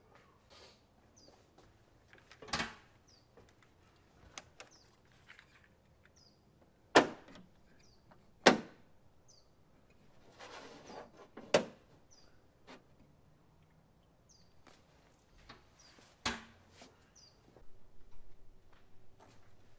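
Sharp knocks and clanks of hand tools and parts during work on a truck engine bay, about five loud ones spread out with quieter handling sounds between. Faint short high chirps repeat every second or two underneath.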